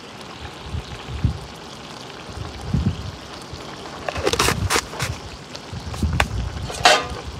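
Low outdoor rumble with a few short clicks and rustles about four to seven seconds in, from handling of cooking utensils at the curry pot.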